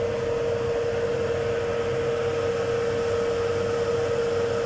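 A long whistle-like tone held steadily at one pitch, over a constant low rumbling noise.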